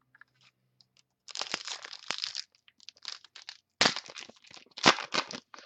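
Foil trading-card pack wrapper being torn open and crinkled, in several noisy bursts with sharp crackles about four and five seconds in.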